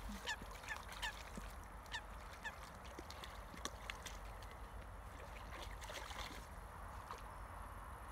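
Geese honking repeatedly, about three short calls a second, dying out about two and a half seconds in; after that, faint splashing of dogs wading in shallow water.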